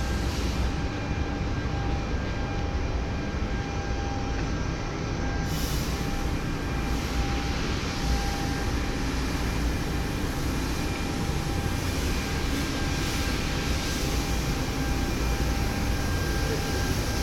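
CNC milling machine for prosthetics running steadily, its spindle giving a faint steady whine over a continuous mechanical hiss, which brightens about five seconds in.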